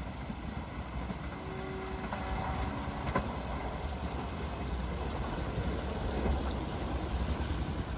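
Distant rumble of a receding diesel-hauled passenger train, a steady low rumble and hiss, with a short hum about two seconds in and a sharp click about three seconds in.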